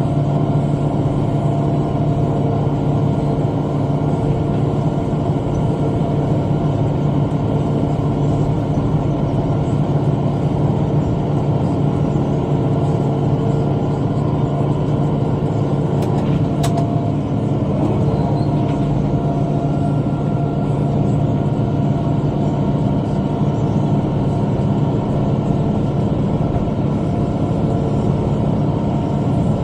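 Tractor engine running steadily under load while pulling a bush hog rotary cutter through brush. Two brief sharp clicks sound a little past halfway.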